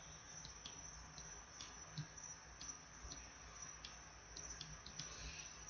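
Faint, irregular clicks of a computer mouse button, a dozen or so spread unevenly, as pen strokes are drawn with the mouse, over low steady hiss.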